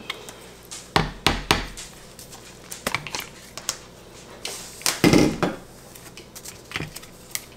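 A few clunks and knocks of a stainless steel stick blender against a plastic cup of soap batter as it is moved about and lifted. There are three quick ones about a second in, another near three seconds, and a heavier one around five seconds.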